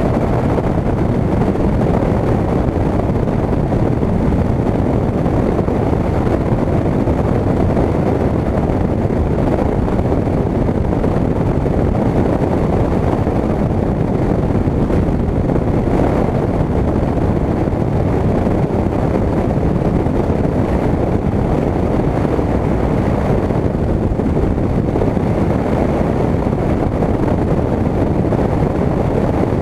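Steady wind rush and airflow over a wing-mounted camera, with the drone of a single-engine light plane's engine and propeller underneath, as the plane descends on final approach. The noise is loud and even, heaviest in the low and middle range.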